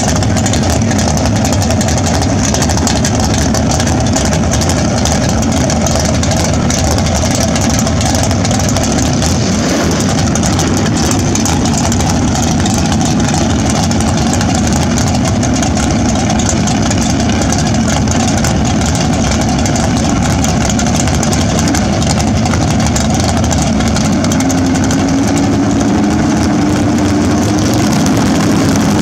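Fox-body Ford Mustang drag car's engine idling loudly and steadily while it creeps up to stage, with the pitch rising slightly near the end.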